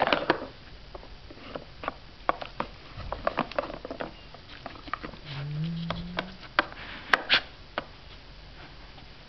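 Dog working a plastic treat-puzzle toy (Nina Ottosson Dog Casino) with its nose: a run of irregular light plastic clicks and knocks as the drawers are nudged and rattled. A brief low voice hum comes about five seconds in.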